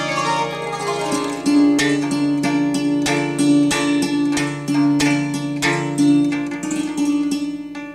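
Santoor, the Indian hammered dulcimer, struck rapidly with light mallets so its strings ring on, opening with a quick descending run of notes, over a steady low drone.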